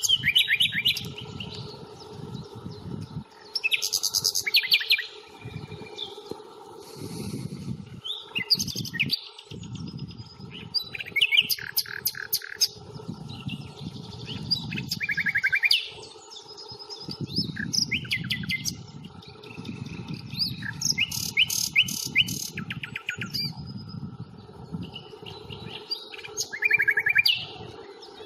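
Common nightingale singing: a string of varied phrases, many built of fast repeated notes, separated by short pauses. A low rumble comes and goes underneath.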